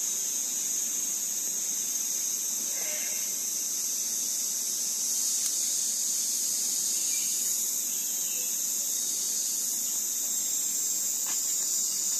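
Steady, high-pitched chorus of insects, unbroken throughout, with a couple of faint knocks of handling.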